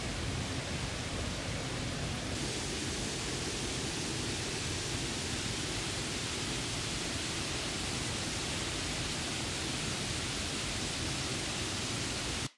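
Steady, even rushing outdoor ambience with no distinct events. It grows brighter a couple of seconds in and cuts off abruptly near the end.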